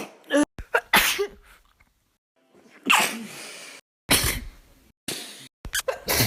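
A rapid series of human sneezes, about half a dozen short, sharp bursts one after another, each with a breathy hiss and some with a brief voiced "choo" that falls in pitch, cut abruptly from one to the next.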